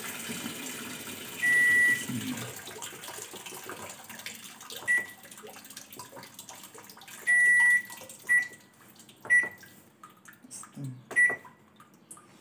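Zanussi Hydrosonic top-loading washing machine's control panel beeping as its buttons are pressed: six high beeps, the first and third longer, the others short. Under them runs the steady rush of the machine filling with water, fading toward the end.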